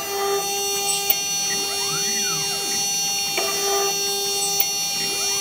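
Desktop CNC machine running a hole-drilling cycle: its axis stepper motors whine up and then back down in pitch as the head moves from hole to hole, about every three and a half seconds, over a steady whine from the water-cooled 800 W spindle. Light clicks come about a second in and near the end.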